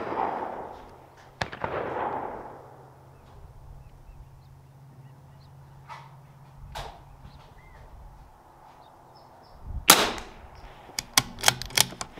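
.22LR rifle shots: a sharp crack with a rolling echo near the start and another about a second and a half in. Later comes a louder shot just before the end, followed by a quick run of sharp clicks.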